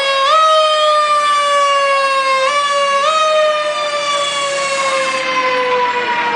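Fire truck siren being bumped up in pitch again and again, each time quickly rising and then slowly winding back down. A short hiss comes in about four seconds in.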